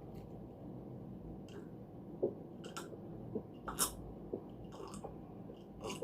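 Close-miked chewing of fried salted tofu, with a few short mouth clicks scattered through, the loudest near the middle.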